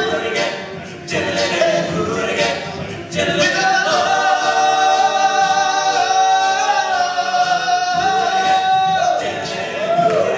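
All-male a cappella group singing live: a lead voice on a handheld microphone over backing voices. Through the middle the lead holds one long high note for about five seconds.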